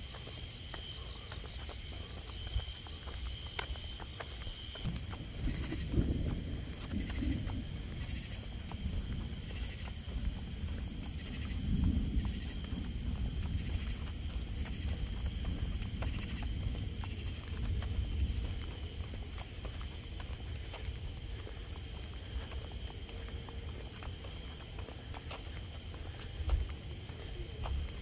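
Night insects chirring steadily in a high, finely pulsing trill. Under them runs a low rumble that swells a few times.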